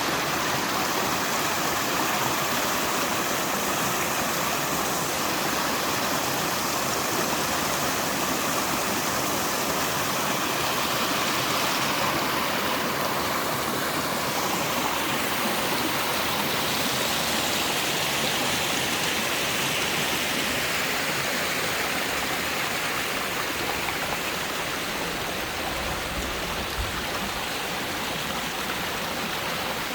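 Rain-swollen mountain stream rushing steadily: a small creek running high after the monsoon rains. A brief low rumble comes in near the end.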